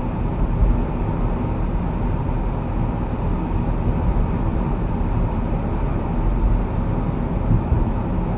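Steady road and engine noise inside a moving car's cabin, a low, even rumble with no sharp events.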